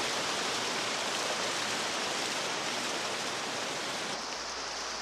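Steady rushing of falling water, an even hiss with no pauses. About four seconds in it changes to a softer hiss over a low hum.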